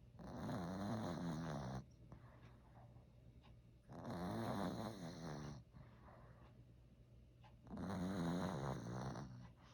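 A Maltese dog snoring in its sleep: three loud, rasping snores about four seconds apart, each lasting under two seconds, with quieter breathing between. The snoring is new, and the owner worries it may be a sign that the dog is unwell.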